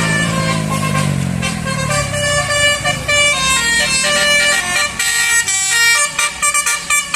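Basuri telolet bus horn playing a quick melody of short pitched notes that step up and down, turning choppier near the end. In the first two seconds a passing vehicle's engine falls in pitch beneath it.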